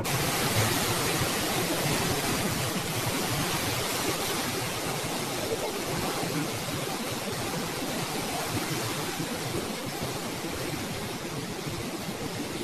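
Steady, even rush of hurricane storm noise over a flooded street, wind, rain and moving floodwater blending into one continuous hiss-like roar.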